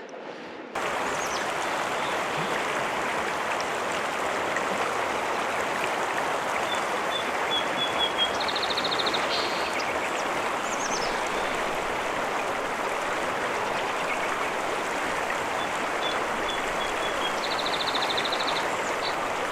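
South Platte River water rushing steadily over rocks, a constant even flow. Short runs of high chirping calls sound over it twice, about a third of the way in and again near the end.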